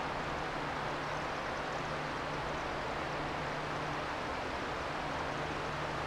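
Steady outdoor background noise: an even hiss with a low, continuous hum underneath.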